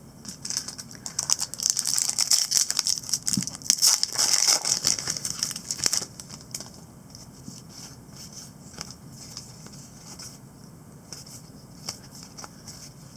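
Trading-card pack wrapper crinkling and tearing open for several seconds, then quieter scattered clicks and rustles of cards being handled.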